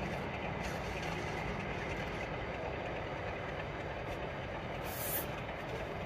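Diesel-hauled passenger train pulling away into the distance, with a steady low rumble from its locomotive. A short hiss comes about five seconds in.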